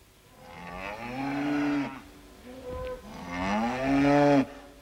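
Two long cow moos, each rising in pitch and then held, about a second and a half apart. This is the little ghost Labolina imitating a cow, and the queen and her maid take it for a cow loose in the castle.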